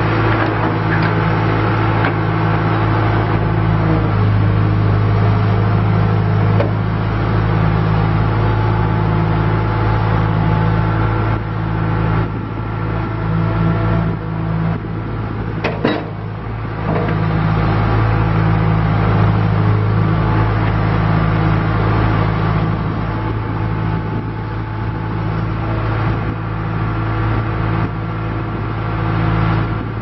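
2003 John Deere 310G backhoe loader's four-cylinder diesel engine running steadily while the backhoe boom and bucket are worked, its level sagging and recovering a few times with the hydraulic load. A short knock comes about halfway through.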